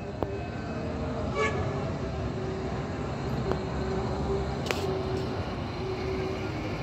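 Military cargo trucks' engines running with a low, steady rumble as the trucks roll slowly in.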